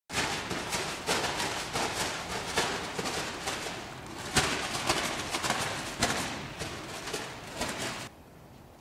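Plastic bag on a stick rustling and flapping irregularly as it is waved, with crackly bursts that stop abruptly near the end.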